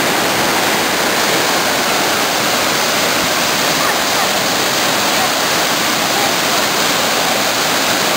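Waterfall: falling water making a loud, steady rush of noise.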